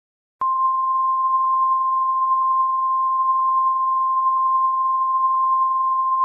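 Emergency Alert System attention tone: one loud, steady, unwavering beep of a single pitch that starts abruptly about half a second in and holds without a break. It signals that an emergency alert message is about to be read.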